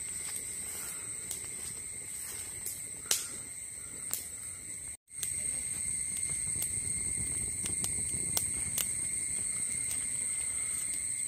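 Insects droning in two steady high tones, with scattered sharp crackles from a charcoal and coconut-shell fire catching in a brick stove. The sound drops out for a moment about five seconds in.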